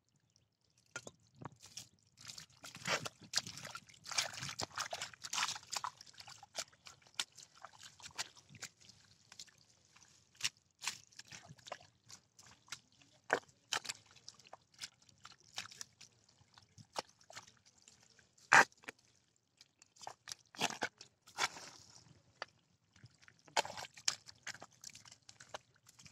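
Hands digging and squelching in wet mud, with irregular sloshing, sucking and clicking sounds and one sharp knock about two-thirds of the way through.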